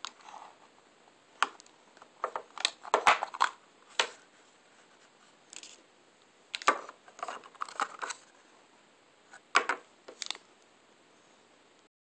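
Plastic and card packaging of an iPod nano being handled: irregular clicks, taps and crinkles from the clear plastic box, the paper inserts and the earphones' plastic case, with quiet gaps between. The sound cuts out completely near the end.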